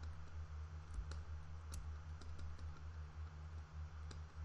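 Scattered light clicks of computer input, irregular and about ten in all, over a steady low hum.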